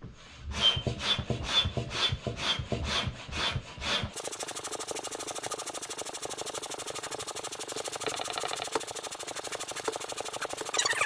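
Single-stage hand pump inflating an inflatable paddle board: strokes about two a second, each with a rush of air and a short high whistle. About four seconds in it cuts to a sped-up time-lapse of the pumping, a rapid, even run of strokes.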